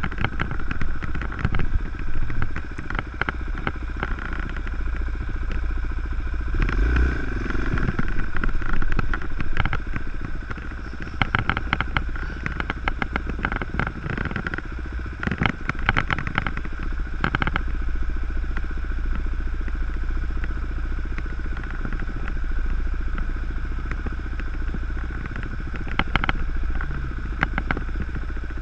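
Dirt bike engine running steadily, with clusters of sharp clattering and crackling near the middle.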